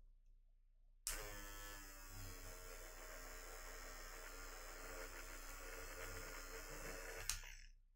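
Derwent electric eraser switched on about a second in, its small motor running with a steady buzzing hum as it erases a highlight stripe out of colored pencil, then switched off with a click near the end.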